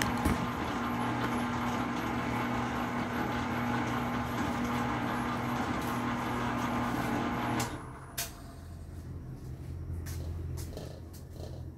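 Commercial planetary stand mixer running steadily with a constant motor hum while it mixes ensaymada dough in its steel bowl, then shutting off abruptly about two-thirds of the way through. A quieter low hum and a few light clicks follow.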